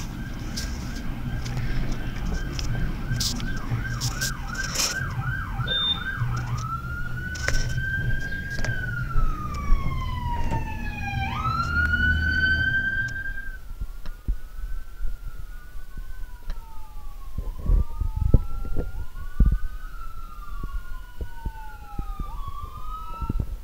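Emergency vehicle electronic sirens: a fast yelp for the first six seconds or so, then a slow rising and falling wail, with engine rumble underneath. About halfway through the rumble stops and a second, fainter siren goes on wailing.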